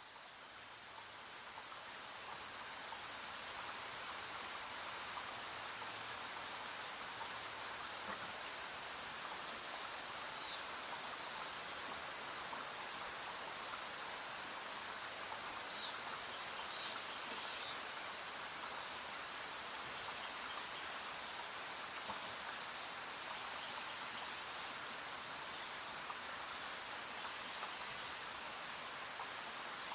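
Steady rain ambience, a constant even hiss that fades in over the first few seconds, with a few brief high chirps in the middle.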